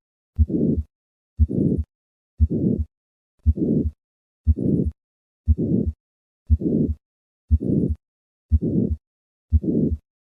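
Heartbeat, about one beat a second, with a harsh systolic murmur filling the gap between the first and second heart sounds of each beat. It is the murmur of hypertrophic cardiomyopathy, the sign of obstruction to left ventricular outflow.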